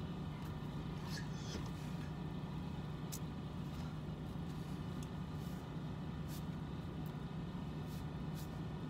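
Steady low hum of a vehicle idling, heard from inside the cab, with a few faint sharp clicks scattered through it.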